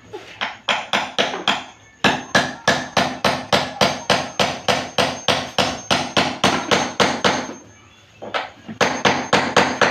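Hammer striking in quick, even blows, about four to five a second, pausing briefly about two seconds in and for about a second near the end.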